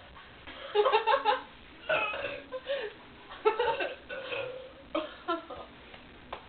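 Young women belching in a string of separate burps, with some giggling and laughter between them.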